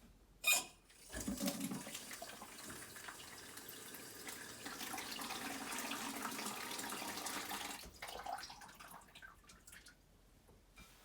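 A sharp click, then water runs from a newly fitted universal hose faucet for about seven seconds before being shut off.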